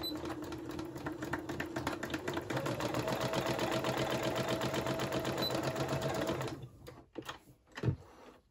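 Britannia Instyle 65 sewing machine stitching a seam in jersey fabric. Its motor speeds up about two and a half seconds in and stops a couple of seconds before the end. A few clicks and one sharp knock follow near the end.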